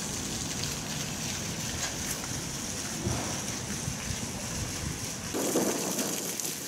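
Wind on the microphone outdoors: a steady rushing rumble with a faint hiss over it, growing a little louder near the end.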